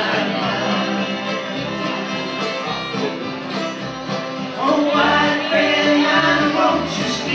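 Live bluegrass string band playing a country song: bowed fiddle over strummed acoustic guitars, mandolin and a steady bass line.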